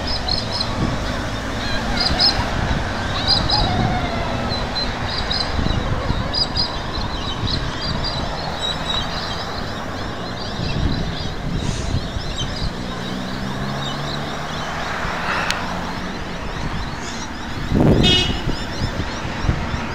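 Road traffic at a signalled intersection: cars running and passing, with a high, short chirp repeating about once or twice a second through the first half. Near the end comes a loud brushing thump of the camera being handled.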